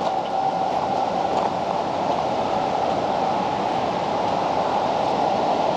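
Water rushing steadily at a small hydroelectric dam.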